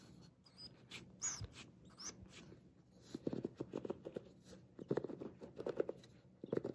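Fingertips running over the wooden pins of a bamboo paddle hairbrush, giving a dense patter of small clicks that comes in clusters and gets busier from about three seconds in.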